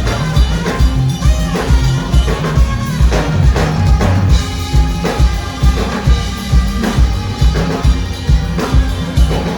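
Live band music: a drum kit and bass guitar keep a steady dance beat, with guitars and other instruments playing over it.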